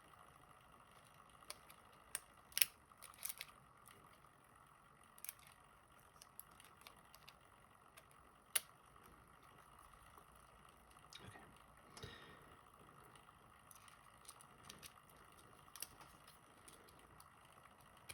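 Scattered sharp metal clicks and taps from adjusting snap ring pliers by hand, over a faint steady hum.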